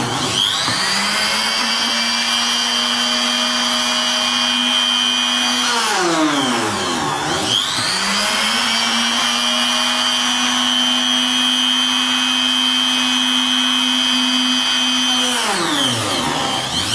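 Electric motor of a small table drilling machine for wood beads running with a steady whine. Twice, about six seconds in and near the end, its pitch drops away and climbs back up as the machine slows and speeds up again.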